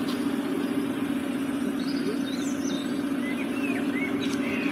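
Steady low hum of an idling engine, unchanging throughout, with a few faint high chirps in the second half.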